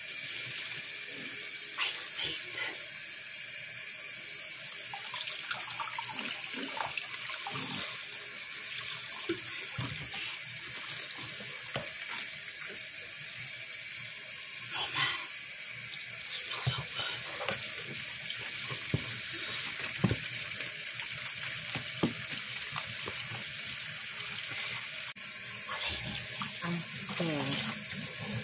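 Kitchen faucet running steadily into a tub of sudsy water in a stainless steel sink, with occasional short splashes and clicks as a sponge is worked in the water.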